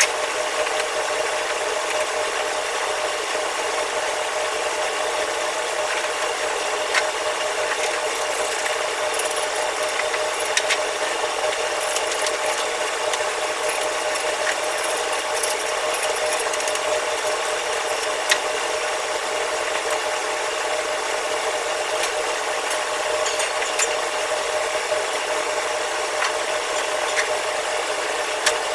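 Scrubbing and scraping on a stainless-steel wok range, with scattered sharp metal clinks, over a steady fan hum.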